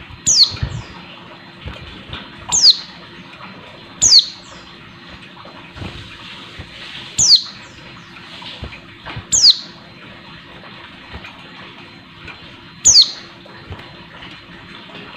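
Female white-eye (pleci) calling: six short, high, thin notes that each drop quickly in pitch, spaced a second and a half to three and a half seconds apart. It is the female's call to males, used by keepers to rouse caged male white-eyes.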